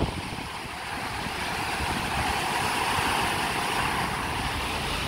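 Sea surf breaking and washing over a rocky shoreline: a steady rush that swells in the middle and eases again, with wind gusting on the microphone underneath.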